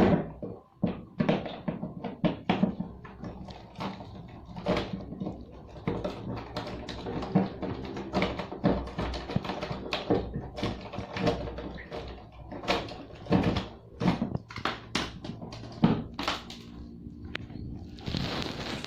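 Irregular knocks, clicks and clatter of hand tools working on a washing machine's plastic drain parts as it is taken apart, with a brief rushing noise near the end.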